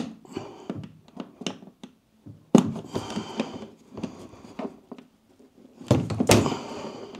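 Knocks and thunks from the casing of a Creality CFS filament box as its parts are handled and clips are pushed into place with a tool. There is a sharp knock at the start, the loudest thunk about two and a half seconds in, and a couple more just before the end.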